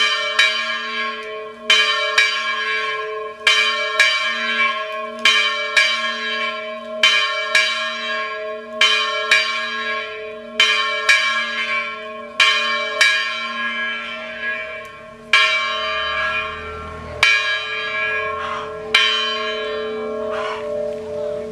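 Church bell tolling the first call to Sunday mass: sharp strokes about once a second, each ringing on into the next. The strokes stop near the end and the bell's ringing tone carries on.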